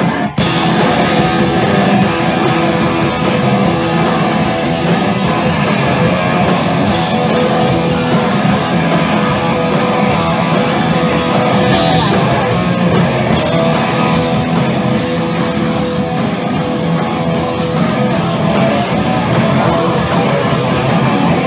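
Live punk rock band playing loud, with electric guitar; the full band comes in just after the start and plays steadily on.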